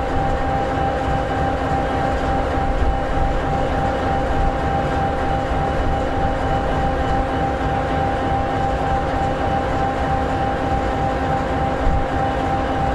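EMD 16-710G3B V16 two-stroke diesel of an SD60E locomotive idling: a steady low rumble with steady whining tones on top.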